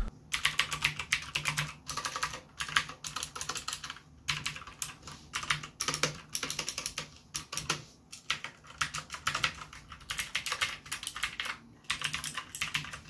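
Typing on a SteelSeries Apex 7 mechanical keyboard with blue clicky switches: a fast, dense run of sharp key clicks with brief pauses about four, eight and twelve seconds in, picked up through a phone's microphone.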